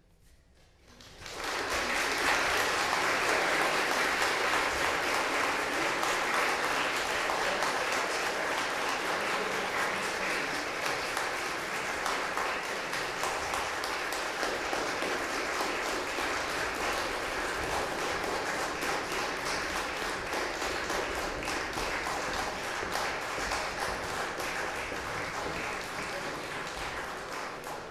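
Audience applauding: the clapping breaks out about a second in, goes on steadily and eases a little before dying away near the end.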